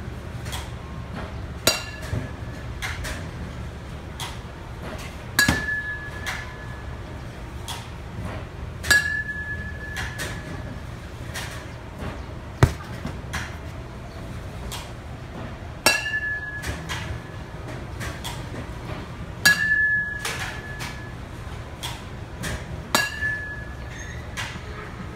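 Aluminium baseball bat hitting machine-pitched balls, a sharp crack with a short metallic ring about every three and a half seconds, five or so times, with a dry knock in place of the ring twice. Smaller clacks in between over a steady low hum.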